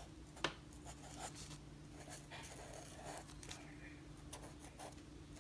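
Felt-tip marker writing on planner paper: faint, scratchy strokes, with one sharp tap about half a second in. A faint steady hum runs underneath.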